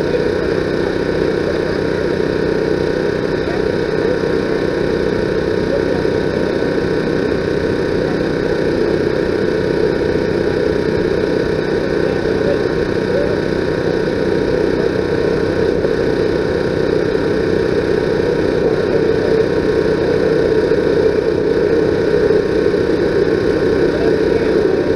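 A steady mechanical hum with several constant tones, running unchanged at an even level.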